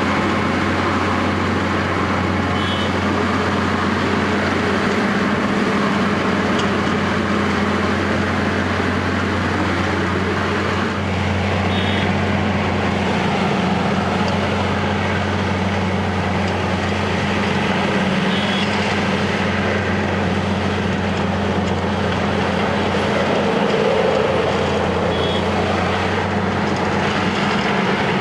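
Wirtgen W210 cold milling machine working, its diesel engine holding a steady deep drone under the noisy grind of asphalt being milled. Short high beeps sound four times, about seven seconds apart.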